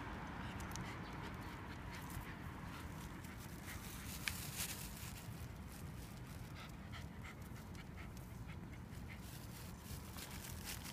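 Shiba Inu panting in short, quick breaths over a steady low background rumble, with a single sharp click about four seconds in.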